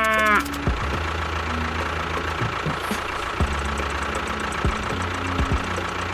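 A tractor engine running steadily at idle, with a low throb and light knocking.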